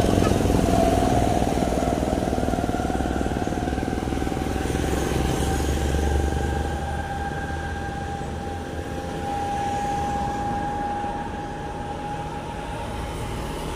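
Road traffic passing: a heavy cargo truck's engine running as it pulls away, with motorcycles and a car going by. A steady whine holds through most of it, and the traffic noise eases off after about six seconds.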